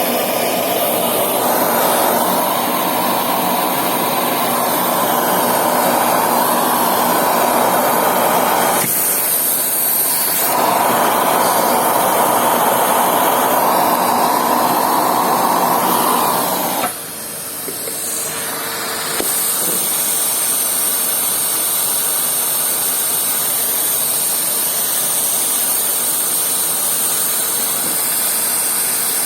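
Henry cylinder vacuum cleaner running steadily with a loud rushing noise. Its sound changes briefly about nine seconds in, and it dips in level for a couple of seconds about seventeen seconds in.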